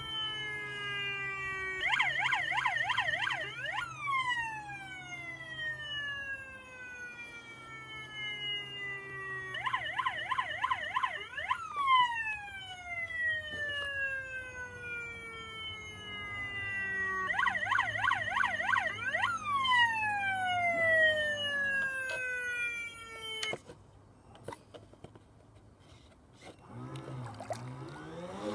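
Siren sound effect from the model lifeboat's sound system: a rapid warble for about two seconds and then a long falling tone, repeated three times before it stops about 23 seconds in. A faint steady low hum runs underneath.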